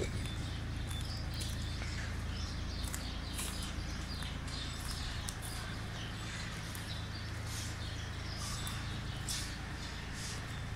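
Cattle barn ambience: small birds chirping here and there over a steady low machine hum.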